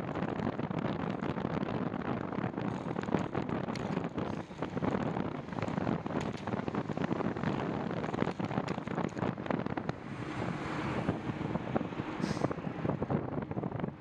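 Wind buffeting the microphone of a handlebar-mounted camera on a moving bicycle, a steady rushing noise with rapid flutter, with a short high hiss near the end.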